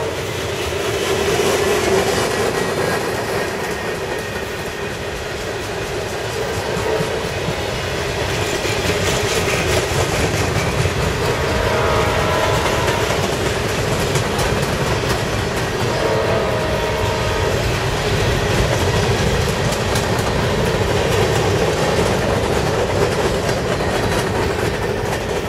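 Freight train of tank cars, covered hoppers and centerbeam flatcars rolling past at speed, steel wheels clattering over the rails in a steady, loud rumble.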